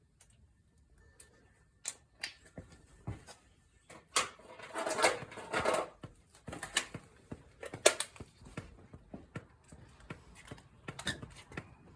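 Scattered metallic clicks and knocks from hand tools working on the ATV's drum-brake parts. A rougher stretch of scraping and rattling comes about four to six seconds in, and one sharp click follows near eight seconds.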